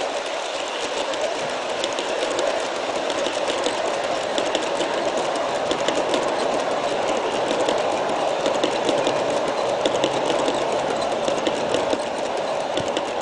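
G-scale model train, pulled by five Aristo-Craft ALCO diesel locomotives on track power, rolling along garden-railroad track: a steady rolling hum with many rapid fine clicks from the wheels on the rails.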